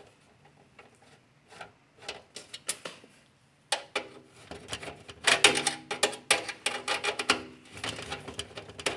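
Irregular clicks and light clatter of hard objects being handled, sparse at first and thickest from about four to seven and a half seconds in.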